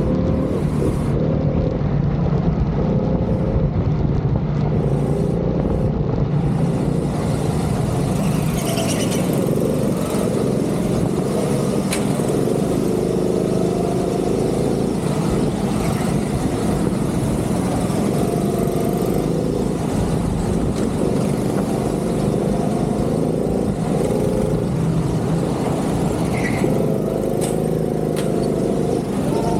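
Go-kart engine running at high revs on track, the pitch rising and falling as the driver accelerates out of corners and lifts off into them, with wind noise on the onboard microphone.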